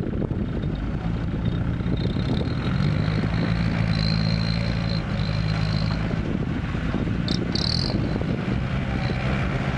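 Diesel engines of a six-wheel dump truck and a farm tractor running. About three seconds in, the engine note rises and holds steady as the dump bed tips up to unload its soil.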